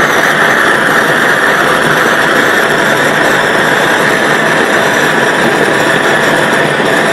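Large butane gas torch burning at full flame: a loud, steady rushing hiss of the gas jet that holds unchanged throughout.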